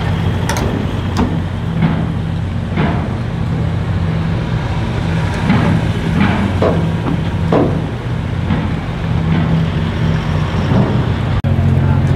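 Car ferry's machinery running with a steady low drone, as cars and a van drive past at close range over the linkspan, with a sharp knock every second or two, the kind vehicle wheels make going over the ramp plates.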